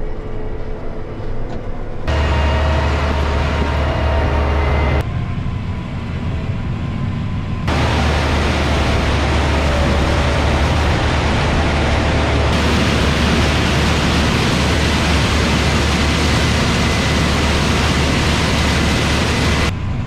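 Tractor pulling a grain cart alongside a combine harvester harvesting corn: a steady low machinery rumble under loud rushing noise. The sound jumps abruptly between quieter and louder about two, five and eight seconds in.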